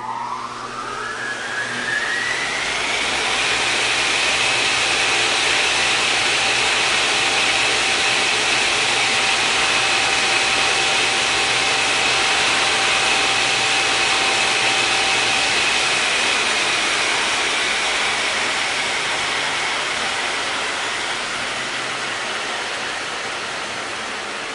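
Turbine spooling up: a whine that rises steeply over the first few seconds, then holds steady above a loud rushing hiss. The whine and the rush slowly ease off over the last several seconds.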